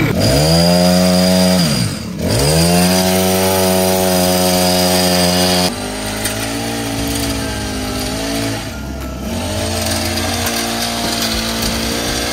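Honda UMC425 four-stroke engine driving a pole-saw attachment, just pull-started and revved high. Its pitch dips and climbs back twice in the first two seconds. From about six seconds in it runs quieter and lower, steady, with small wavers.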